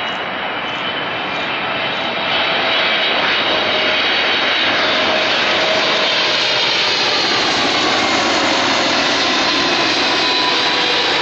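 Twin-engine Boeing 777-300 jet passing low overhead on final approach, gear down. The steady engine roar grows louder about two seconds in, and its whine slowly falls in pitch as it passes.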